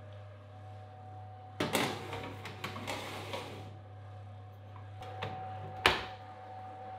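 A running oven hums steadily while a baking dish is slid onto the metal oven rack with a clattering scrape. Near the end the oven door shuts with one sharp bang, after a small click.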